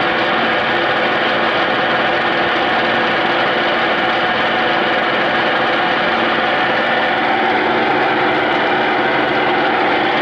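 Clausing Colchester 8031 engine lathe running, a steady mechanical hum of turning gears with several fixed tones.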